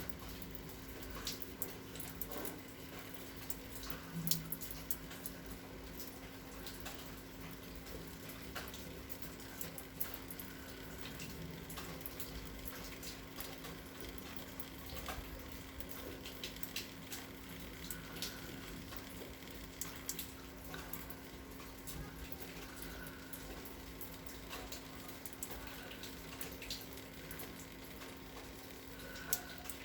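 Faint trickling and dripping of water running out of a nostril during a jal neti nasal rinse with a neti pot, with scattered small ticks over a steady low hum.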